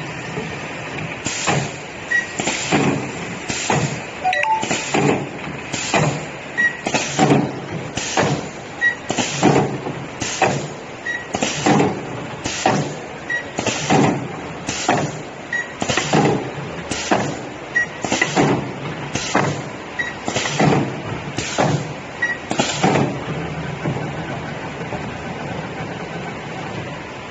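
Multi-head spot welding machine cycling: a run of sharp clanking strokes, a little over one a second, as the pneumatic welding heads press down, weld and release. The strokes stop about 23 seconds in, leaving a steady machine hum.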